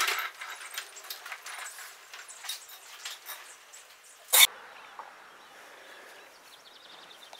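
Casters of a small wooden moving dolly rattling and clicking as it is rolled over concrete under the weight of a mini-split outdoor unit, with one sharp click about four and a half seconds in. After that only a faint steady hiss.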